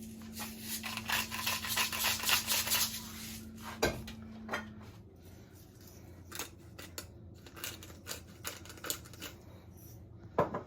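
Salt and pepper being added to a dressing: about three seconds of rapid gritty clicking, then scattered light clicks and clinks.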